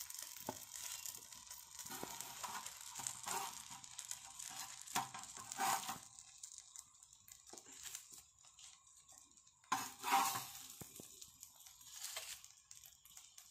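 Faint sizzle of banana-leaf-wrapped Indian mackerel frying on a hot iron tawa, broken by short scrapes and leaf rustles as a metal spatula lifts the charred parcels off the pan. The loudest scrape comes about ten seconds in.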